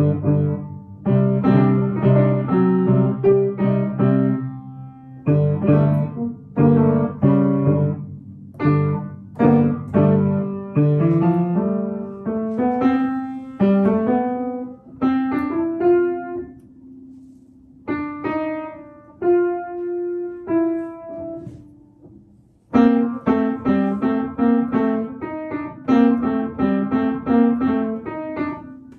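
Upright piano played by hand by a young child: chords and melody notes struck in phrases with short breaks between them. It thins to single notes in the middle, stops briefly about 22 seconds in, then comes back with fuller chords.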